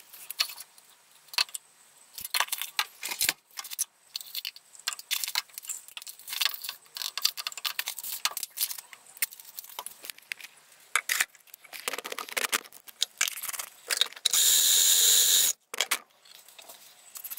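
Clinks, taps and scrapes of containers, lids and a spoon as ingredients go into a blender cup, then a Magic Bullet blender runs for about a second near the end and stops abruptly.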